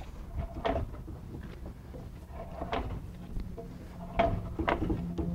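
Propeller of a Rotax 912 aircraft engine being turned over by hand, giving several short clunks as the blades are pushed round. It is turned to push the oil back into the oil tank so the level can be read on the dipstick.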